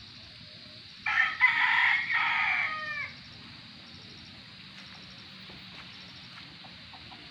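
A rooster crowing once, about a second in, a loud call of about two seconds that falls in pitch at the end.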